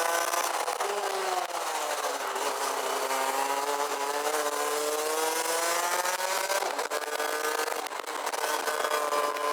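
Rotax Max DD2 125 cc two-stroke kart engine heard onboard. Its revs fall as the kart slows about a second in, then climb steadily under acceleration, with short dips near the end, over steady wind hiss on the microphone.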